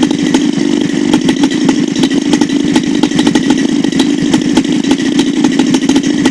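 CRRC Pro GF45i 45cc single-cylinder two-stroke gas engine running steadily at a constant speed on a test stand, with a fast, even firing beat. It is running really strong, on carburettor settings left untouched for over a year.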